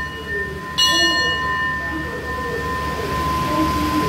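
Station bell struck once about a second in, ringing out and fading over about a second, the signal for the train's departure. Under it run a steady high tone and the low rumble of the waiting passenger train.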